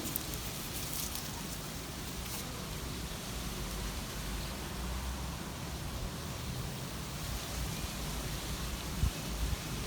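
Steady outdoor hiss of garden ambience, with a few faint ticks in the first couple of seconds and low thumps near the end.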